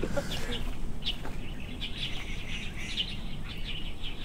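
Birds chirping: short high calls repeating every second or so over faint outdoor background noise.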